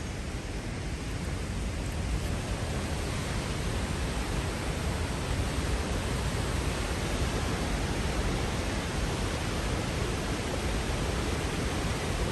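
Steady roar of rain-swollen falling water from the Peričnik waterfall, growing a little louder about two seconds in.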